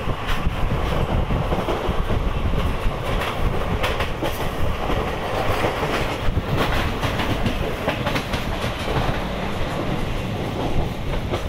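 Passenger train running along the track, heard from the open doorway of a coach: a steady rumble with irregular clicks and knocks of the wheels over the rail joints.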